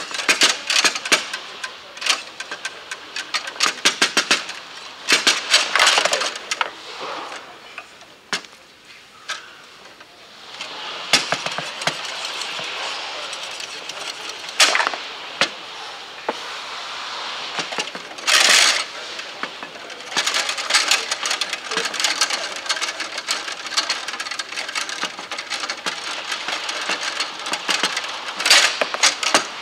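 Foosball being played on a Bonzini table: rapid clacks and knocks of the ball against the figures and walls and of the rods and handles rattling, coming in dense flurries, with a brief louder clatter about two-thirds of the way through.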